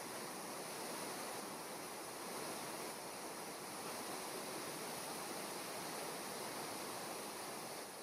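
Waterfall on a mountain stream, water rushing steadily with an even hiss.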